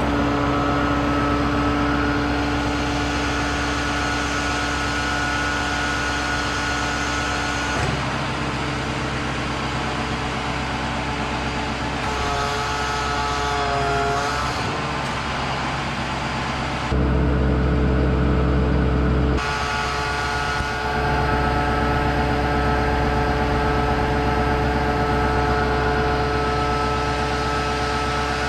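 Hydraulic system of a Palfinger PK7.001 knuckleboom crane running with a steady mechanical hum while the extension boom is retracted and the crane folded for stowing. The pitch wavers for a couple of seconds near the middle, and then comes a louder, deeper stretch of about two seconds.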